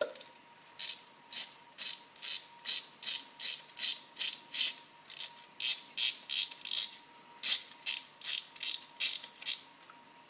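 Ratchet wrench with a 10 mm socket clicking in short, even bursts, about two to three a second, as it is swung back and forth to unscrew a bolt; the clicking stops shortly before the end.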